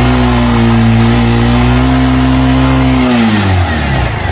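Honda CG Fan 160's single-cylinder four-stroke engine revved and held at steady high revs for about three seconds, then dropping back toward idle near the end. It is being revved while its battery charging voltage is checked, on a bike whose fault is bogging when accelerated.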